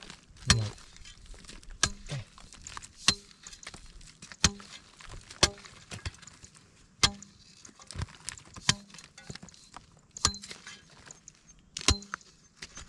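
Hoe chopping into hard, dry, cracked clay: about ten sharp blows, roughly one a second, as the baked mud breaks into clods.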